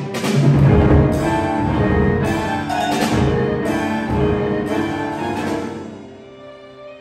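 Pierrot ensemble of flute, clarinet, violin, cello, piano and percussion playing a loud, prog-metal-inspired contemporary chamber passage, with heavy accented hits about once a second. About six seconds in the sound drops away, leaving a few held ringing tones.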